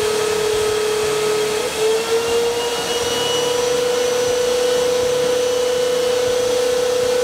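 Two canister wet/dry vacuum cleaners running steadily with a constant whine and rushing hiss, their suction holding vacuum shoes to the ceiling. About two seconds in the whine wavers briefly and settles slightly higher.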